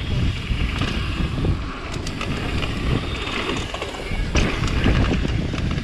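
Wind buffeting the camera microphone on a mountain bike ridden fast down a dirt trail, over the rumble of tyres on packed dirt and the bike rattling, with a few sharp clicks and knocks.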